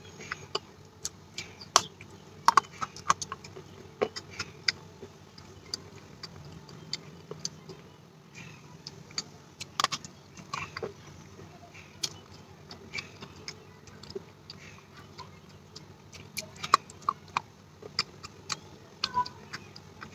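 Wet baked clay being bitten and chewed close to the microphone: irregular sharp crunches and crackles, some much louder than others.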